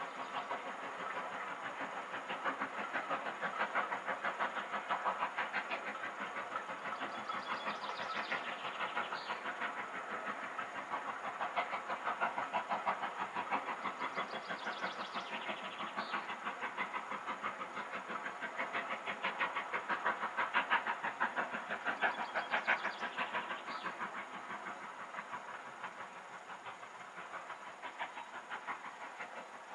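LMS Black 5 4-6-0 steam locomotive working a train, its fast, regular exhaust beat heard from across the valley, fading near the end.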